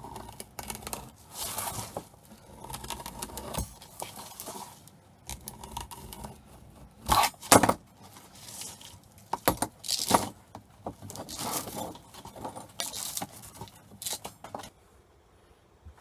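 Plastic outer sheath being peeled by hand off a steel-wire-braided cable, the metal braid rattling and scraping in irregular bursts. The loudest bursts come about seven seconds in.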